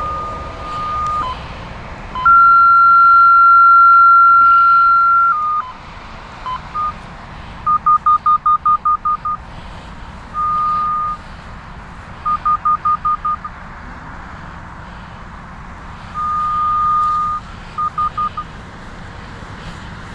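Radiodetection RD8200 locator receiver beeping as it picks up the tracing signal on a ductile iron water main. Long steady beeps alternate with quick runs of short pips, about eight a second. A longer, louder, slightly higher beep comes about two seconds in and lasts some three seconds.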